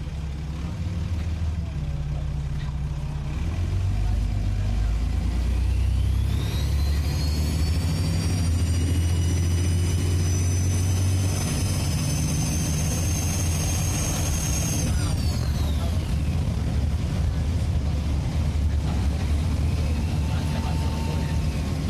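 Dennis Trident 2 double-deck bus's diesel engine pulling under load, with a high turbocharger whistle that rises in pitch from about five seconds in, holds, and falls away about fifteen seconds in as the engine eases off.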